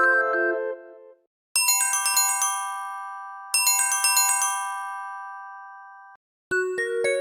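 Electronic notification chime: a quick cluster of bright, glockenspiel-like notes that ring out and fade, played twice about two seconds apart. A previous melodic tone fades out in the first second, and a new, lower tone starts near the end.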